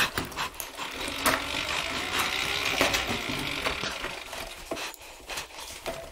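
Scraping and rubbing as an electric dirt bike is pushed by hand over rubble, with a few knocks along the way.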